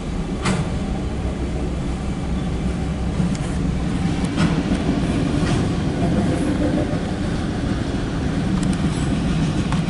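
Loaded CSX autorack freight train rolling past: a steady low rumble of wheels on rail, with a few scattered sharp clicks.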